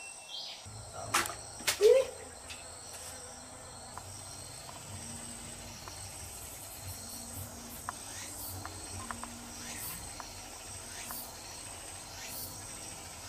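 Crickets chirring, a steady high-pitched buzz with faint repeated chirps over it. A couple of sharp knocks stand out about a second and two seconds in.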